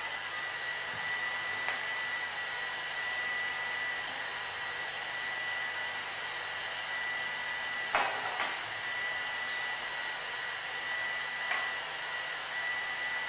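Leister Sonora S1 hot-air hand tool running steadily as it heats a fastening to loosen screws: an even blowing hiss with a thin high whine. A few light clicks, the clearest about eight seconds in.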